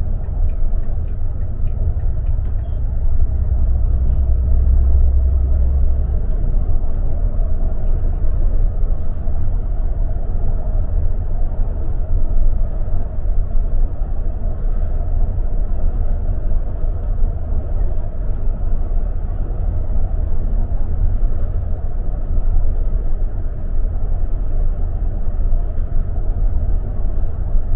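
Bus engine and road noise heard from inside the cabin while driving along a highway: a steady low rumble, with a deeper hum swelling for a few seconds near the start.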